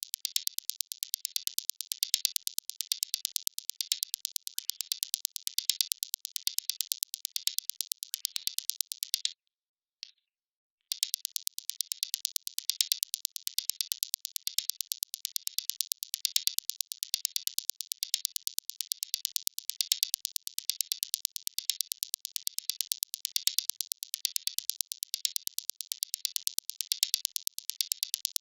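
A looped electronic hi-hat-like pattern of short, high ticks, about four a second, with no bass or other parts under it. It stops about nine seconds in and starts again a second and a half later.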